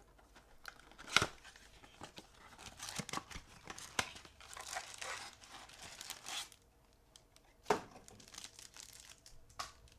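Cardboard box packaging being torn open and its wrappers crinkling, with two sharp taps, about a second in and near the end.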